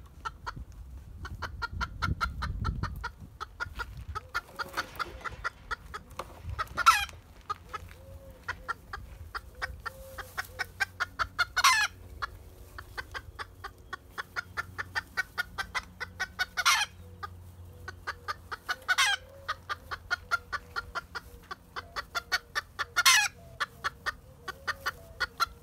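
Modern game bantam hen cackling: long runs of quick, evenly spaced clucks, several a second, each run breaking into a loud, wavering squawk, five times over.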